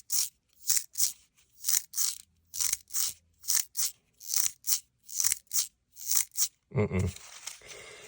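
Plastic deformation worm fidget toy being squeezed and worked over and over, giving short crunchy rasps about three a second, often in pairs. A brief vocal sound near the end.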